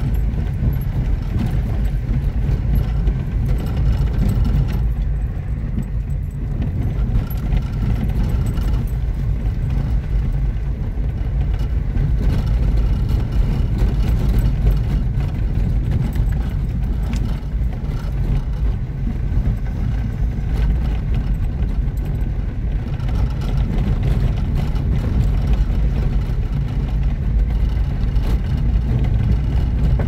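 Car driving along a dirt road, heard from inside the cabin: a steady low rumble of engine and road noise.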